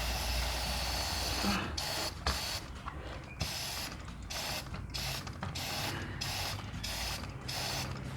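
Aerosol degreaser hissing onto a motorcycle chain in a run of spray bursts with short breaks between them, while the chain clicks round the sprocket as the rear wheel turns in neutral.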